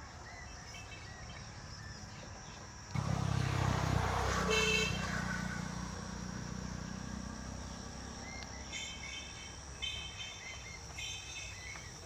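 A motor vehicle passing close by: its engine rumble comes in suddenly about three seconds in and fades away slowly, with a short horn toot a little later. From about nine seconds a bird chirps in short, repeated bursts.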